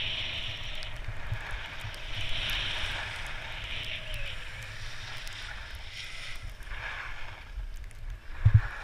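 Skis sliding and scraping over packed snow, the hiss swelling and easing through turns, with wind rumbling on the camera microphone. A short, loud low thump comes near the end.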